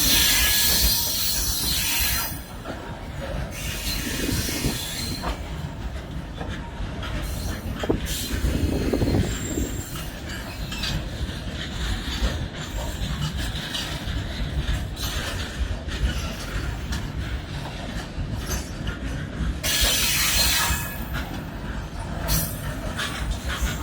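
Fully loaded freight wagons rolling past on the track. The wheels rumble heavily and clatter over the rail joints. High wheel screeching flares at the start and again about twenty seconds in: the loud track noise of a super-heavy goods train.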